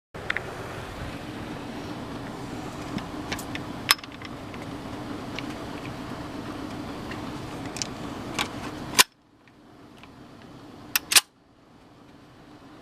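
CZ P-09 pistol shots: one about four seconds in, one about nine seconds in, and a quick pair near eleven seconds, each a sharp crack. After the later shots the sound drops out and slowly returns. Between them runs a steady low hum.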